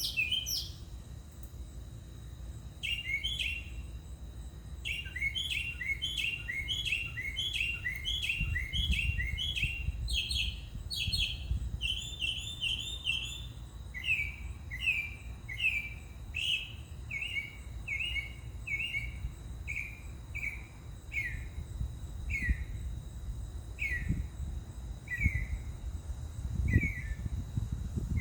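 Northern mockingbird singing, repeating each phrase several times before switching to a new one. It starts with rapid two-note phrases, then moves to higher notes, then to downslurred single notes that come more slowly toward the end.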